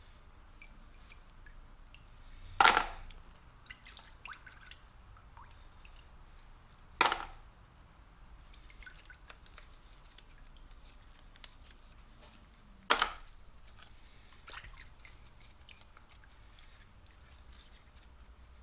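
Wet steel snap ring pliers, just lifted out of an EvapoRust bath, set down with three sharp metallic clacks a few seconds apart. Faint small ticks and drips fall between the clacks.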